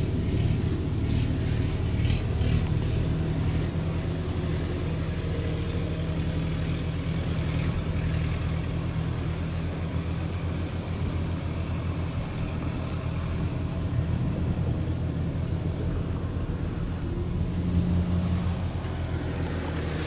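Kubota RT 120 single-cylinder diesel engine running steadily with a fast, even chug, briefly a little louder near the end.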